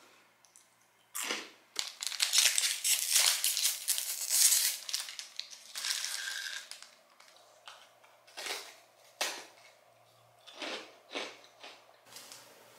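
Clear plastic snack wrapper crinkling and tearing loudly for several seconds as a thin wafer cookie is pulled out, then a handful of separate crisp crunches as the wafer is bitten and chewed.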